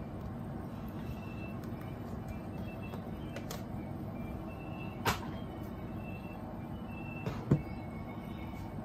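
Handling noise from a tablet and its cases: a couple of light clicks, then a sharper knock near the end as the tablet meets the keyboard case, over a steady low background hum.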